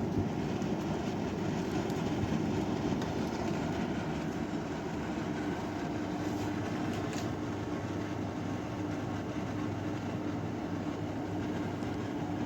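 Iris Ohyama IPA-2822G portable air conditioner running: a steady rush of air from its fan with a constant low hum.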